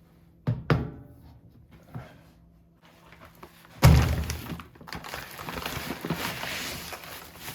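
A few dull thunks: two close together about half a second in, and a heavier, louder one about four seconds in, followed by a steady rushing hiss.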